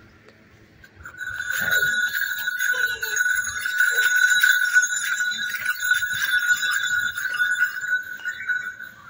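Metal bells on a calf's neck jingling continuously as the calf runs, starting about a second in: a steady ringing with rapid repeated strikes.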